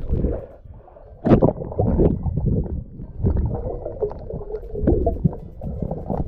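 Muffled sloshing and gurgling of water heard through a camera held under water while snorkelling, with irregular swells of sound.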